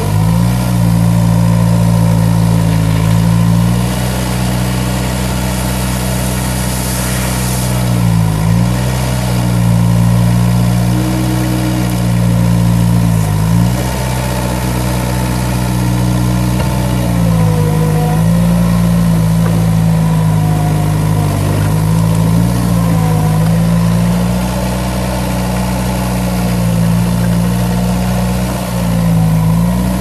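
2002 Bobcat T190 track loader's Kubota four-cylinder turbo diesel engine running steadily at working speed. Its note sags briefly several times as the machine works at the gravel pile.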